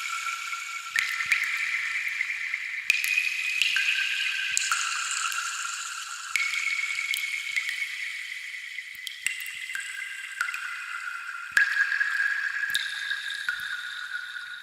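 Water drops falling one at a time, about a dozen in all. Each lands with a sharp plink and leaves a clear, high ringing tone that holds until the next drop, so the pitch steps to a new note every second or two.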